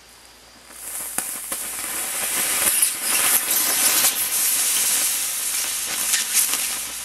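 Trustfire-branded 18650 lithium-ion cell venting and burning as it catches fire under a fast charge, with no protection circuit inside. A loud hiss of escaping gas and flame with many crackling pops starts about a second in and dies down near the end.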